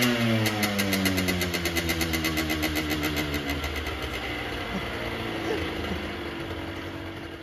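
Aprilia RS50's 50cc Minarelli AM6 single-cylinder two-stroke engine falling back from a throttle blip: the revs drop over the first couple of seconds, then it idles steadily as the sound slowly fades.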